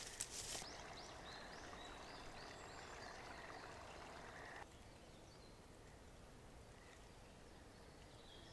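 Faint woodland ambience. A footstep or two swish through long grass at the start, then a small bird sings a quick run of repeated high chirps over a soft hiss. About halfway through, the hiss drops to a quieter background with a call or two near the end.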